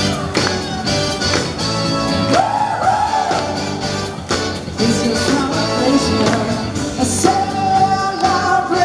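Upbeat pop or rock song with a singer and a steady beat, played loud over an outdoor sound system.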